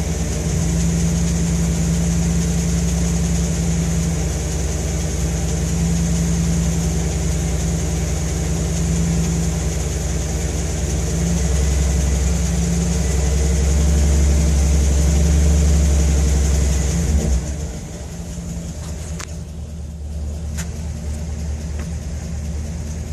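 Car engine idling, run to check for a possible lifter tick. About 17 seconds in, the sound drops to a quieter, thinner hum, and two sharp clicks follow a little later.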